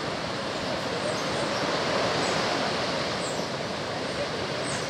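Steady rushing background noise, even and unbroken, with a few faint high chirps scattered over it.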